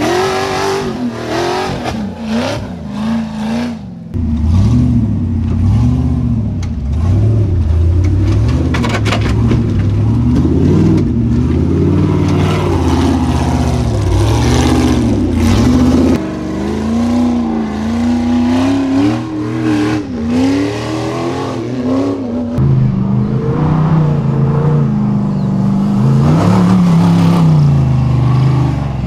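Ultra4 off-road racing buggies' engines revving up and down under load on muddy climbs, in several separate shots joined by sudden cuts.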